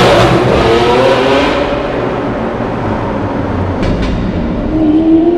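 Lamborghini Aventador LP700-4's V12, on a factory-modified exhaust, accelerating hard past, its note falling in pitch and fading away. About four seconds in come two short sharp cracks, and near the end a rising engine note starts as the engine revs up again.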